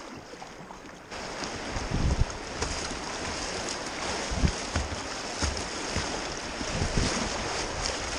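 River whitewater rushing through a riffle, heard from a kayak with a bow-mounted camera, starting suddenly about a second in after quieter calm water. Irregular low thumps of splashes and wind buffet the microphone.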